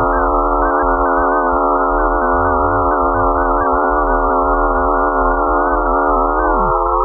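Electronic drone: a dense, steady chord of many held tones, with one tone sliding down in pitch near the end.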